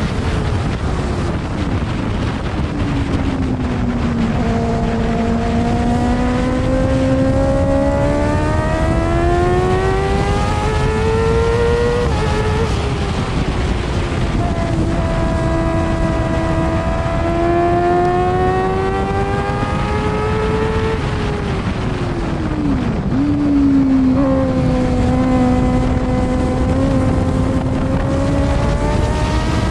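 F2 racing sidecar's engine at race speed, heard onboard: its note climbs slowly as it pulls, drops sharply about twelve seconds in, sinks to a low point around twenty-three seconds as the outfit slows, then climbs again near the end. A heavy rush of wind runs underneath.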